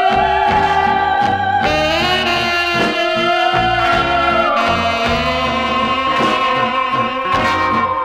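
Early-1960s orchestral exotica record in which a theremin-like wailing lead holds long wavering notes and slides between them, gliding up to a higher held note about halfway through, over orchestral backing with a stepping bass line.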